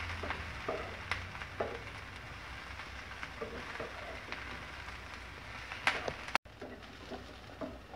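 Stainless steel pot of beef and water heating towards the boil on a stove, giving a steady faint hiss and crackle with a few sharp clicks. The sound cuts out for an instant a little past the middle.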